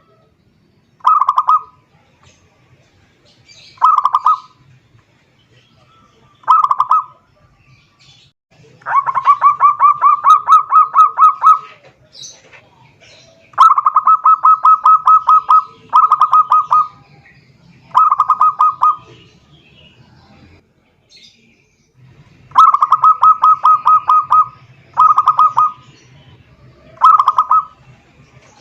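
Zebra dove (perkutut) singing its cooing song: short phrases of quick staccato coo notes, repeated every few seconds, with three longer rapid runs of notes.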